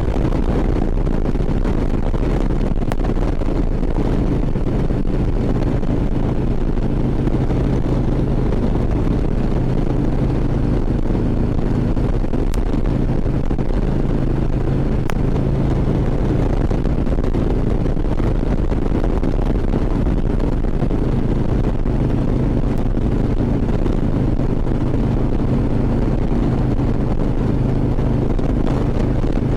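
Harley-Davidson V-twin motorcycle engine running steadily at cruising speed, with wind rushing over the helmet microphone.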